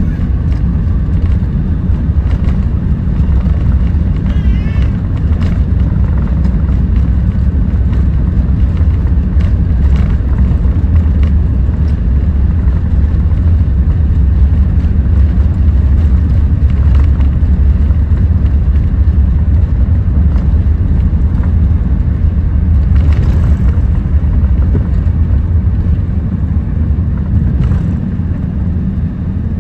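Airbus A380's four Rolls-Royce Trent 900 engines at takeoff thrust, with the landing gear rumbling over the runway during the takeoff roll, heard from inside the cabin over the wing. The loud, steady rumble eases slightly near the end as the aircraft lifts off.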